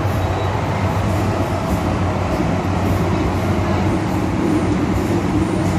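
MTR M-Train electric multiple unit running, heard from inside the passenger car: a steady rumble of wheels on rail with a low motor hum.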